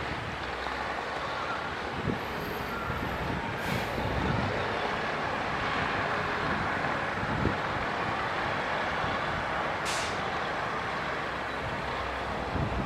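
Heavy earthmoving machinery (a bulldozer and dump trucks) running steadily, with a few low knocks and two short hisses of air, one about four seconds in and one near ten seconds.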